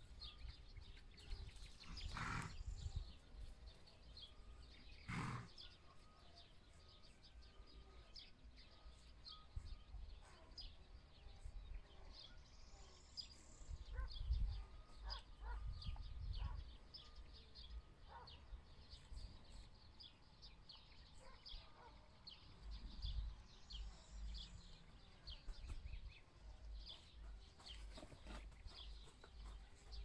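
Faint rural ambience of small birds chirping and singing throughout, over an uneven low rumble. Two brief sharp sounds stand out about two and five seconds in.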